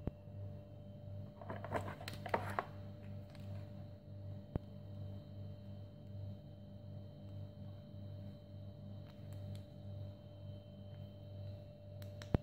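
Cables and plastic plugs being handled: a short cluster of rustles and clicks about two seconds in, then single sharp clicks, one near the end, over a steady low hum.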